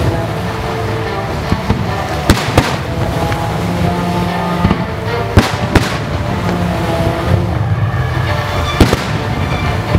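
Fireworks going off in sharp bangs: a pair about two seconds in, another pair midway, and a single one near the end, over music playing throughout.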